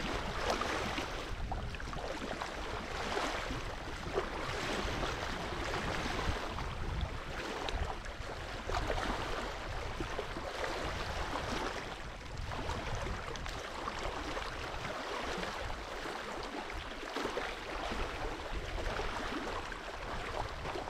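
Small waves lapping at a reservoir shore: a steady rushing noise.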